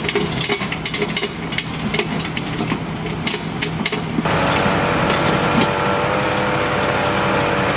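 Vehicle engines idling, with scattered clicks and scuffs over a low steady hum. About four seconds in, the sound changes abruptly to a steadier engine hum with several steady tones.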